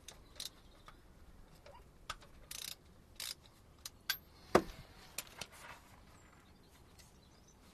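Scattered light clicks and a few short scrapes of hands and a tool working at a tractor's hydraulic filter housing to drop it out, with one sharp metallic knock about halfway through.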